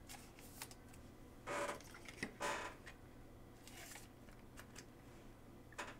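Faint plastic swishes as a trading card is slid into a clear sleeve and a rigid plastic holder: three brief brushing sounds and a couple of light clicks.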